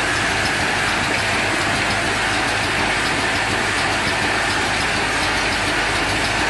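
Flip-top cap closing machine running at high speed, its vibratory bowl feeder rattling plastic caps in a steady dense clatter.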